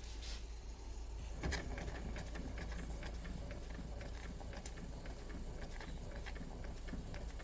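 Doll 387/3 model steam engine running slowly on steam that is not yet fully up, giving a light, irregular ticking with one louder knock about a second and a half in, over a steady low hum.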